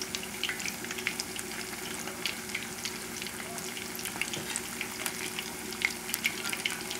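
Battered, cornstarch-dusted chicken pieces deep-frying in a saucepan of hot oil: a steady bubbling sizzle dotted with many small crackles. The vigorous bubbling is the sign that the oil is at the right frying temperature.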